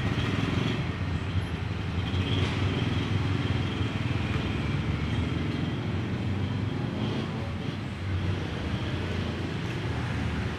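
Steady low rumble of motor vehicle engines running, with no distinct knocks or events.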